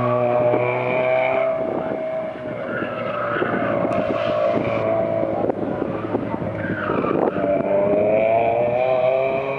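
VW Scirocco autocross car's engine revving up and down as it is driven hard around a cone course, with its tyres squealing through the turns several times.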